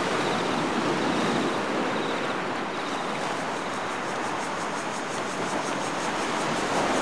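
Ocean surf washing steadily on a rocky shore, an even rushing noise. From about three seconds in, a faint high-pitched chirping repeats about four times a second.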